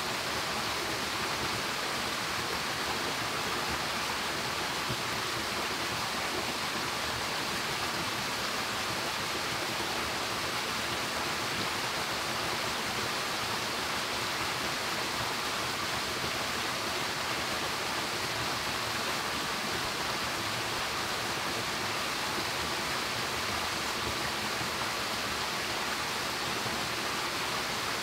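Steady rush of flowing water, an even wash of noise that does not change.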